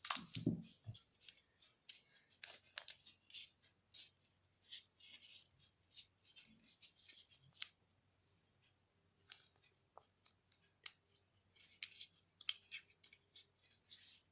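Insulating adhesive tape being cut and wrapped around a small amplifier board: scattered snips, crinkles and light clicks, irregular throughout.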